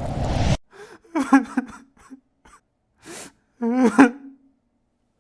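A person's short, non-verbal voice sounds: two gasping or moaning cries with pitch that bends, about a second in and again near four seconds, with a sharp breathy hiss between them. A rumbling noise cuts off suddenly about half a second in.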